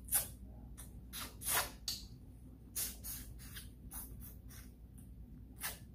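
Close-up wet mouth sounds of someone sucking soup off her fingers while eating by hand: a series of short smacks and slurps, the loudest right at the start and about a second and a half in.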